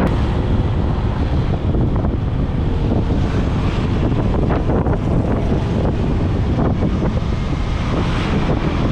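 Wind buffeting the microphone over a steady low vehicle rumble.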